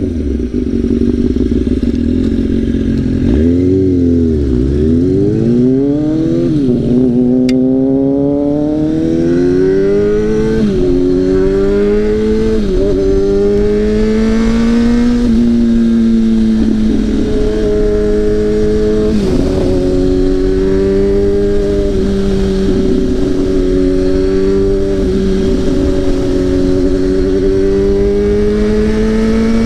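Straight-piped sport motorcycle engine under way: it dips, then climbs in pitch through several gear changes, each shift dropping the pitch back, and then settles to a steady cruise for the second half.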